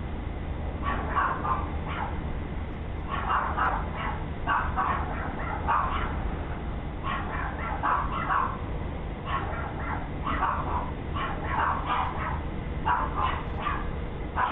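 A dog barking over and over, in short runs of a few barks every second or two, over a steady low hum, heard through a video doorbell's narrow-band microphone.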